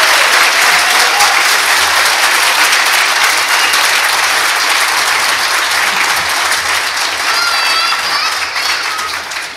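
Church congregation applauding loudly, with a high call or cheer rising over the clapping near the end, before the applause fades away.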